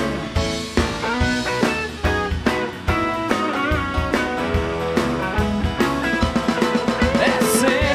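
Live rock band playing an instrumental passage: electric guitar over a drum kit keeping a steady beat.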